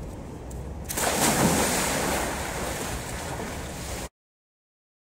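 A person jumping into a swimming pool: a sudden loud splash about a second in, then water sloshing and settling. Wind rumbles on the microphone before the splash, and the sound cuts off abruptly about four seconds in.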